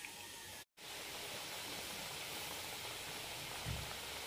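Macaroni boiling hard in a pan of water: a steady, faint bubbling hiss that starts after a brief dropout under a second in, with one soft low thump near the end.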